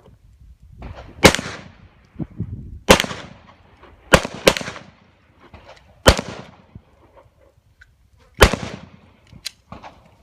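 Six handgun shots fired at an uneven pace, two of them in quick succession about four seconds in, each with a short fading echo.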